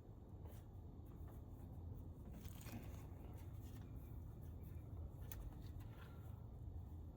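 Faint handling noises of hands working over engine parts: a few light clicks and rustles over a low steady hum.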